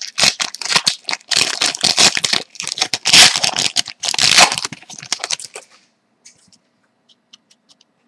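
Plastic wrapper of a trading-card pack being torn open and crinkled by hand: a dense crackling rustle that stops about two-thirds of the way through, leaving a few faint clicks as the cards are handled.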